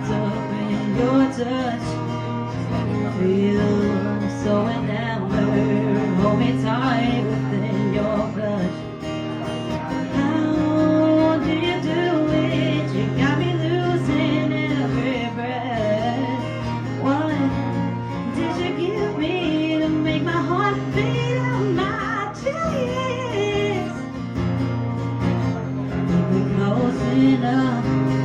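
Music: a song's section without lyrics, with guitar over held bass notes that change every few seconds and a melodic line wavering above.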